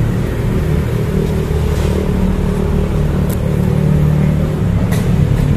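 Steady low motor rumble, like an engine running, with a couple of faint clicks about three and five seconds in.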